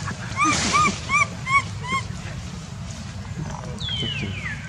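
Baby macaque calling: five short, high squeaks in quick succession, then near the end a longer whistle-like call sliding down in pitch.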